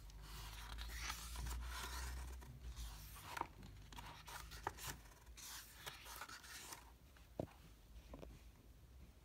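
Pages of a paperback booklet being turned by hand: soft paper rustling and sliding in several bursts, with a few small sharp ticks.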